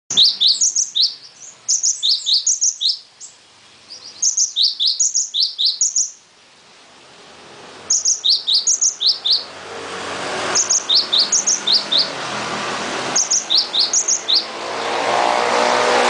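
Caged cinereous tit (gelatik wingko) singing: about six phrases of quick, high, downward-slurred chirps, each phrase about a second long, with short pauses between. From about halfway a motor vehicle's engine rises underneath and is loudest near the end.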